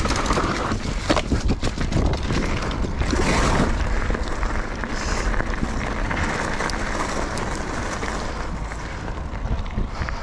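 Wind rushing over the camera microphone with the mountain bike's tyres rumbling and the bike rattling over a dirt trail, with many knocks and clatters from bumps in the first few seconds. It then settles into a steadier rumble as the tyres roll onto gravel.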